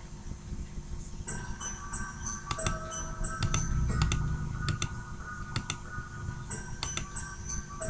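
Instrumental break in electronic dance-pop backing music: a faint hum at first, then synth tones and a bass line about a second in, with sharp clicks scattered throughout.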